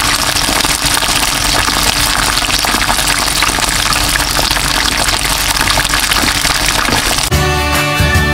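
Chicken wings deep-frying in hot oil in a pan: a steady sizzle with dense crackling. About seven seconds in, the sizzle stops and intro music with a beat starts.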